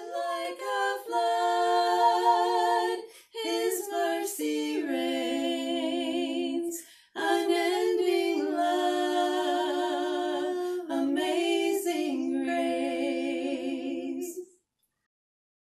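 Two women singing a cappella in two-part harmony, slow held notes in phrases with short breaks about three and seven seconds in. The singing stops a little over a second before the end.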